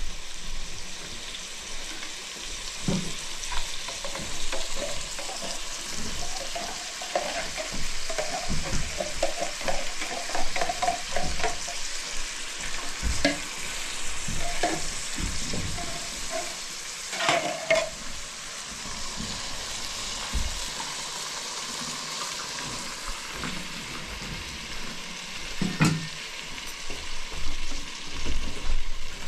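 Food sizzling and frying in a steel pot on a gas stove, with occasional clinks and knocks of a spoon and other kitchen utensils.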